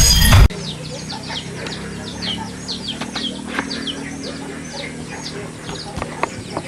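Music cutting off sharply about half a second in, then birds chirping: many short calls, each falling in pitch, a few every second, with a few scattered clicks.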